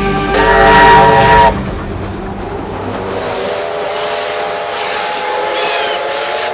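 Steam locomotive whistle blowing: a loud multi-note blast that cuts off suddenly about a second and a half in, then a softer steady whistle from about halfway.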